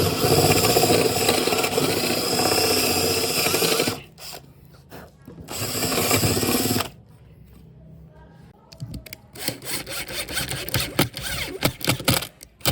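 Power drill running in two steady bursts, a long one of about four seconds and then a short one. It is followed by a scatter of knocks and clatter of wood being handled.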